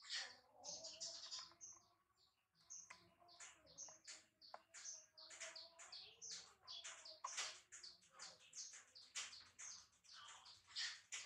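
Faint, busy chirping of small birds, several quick high chirps a second.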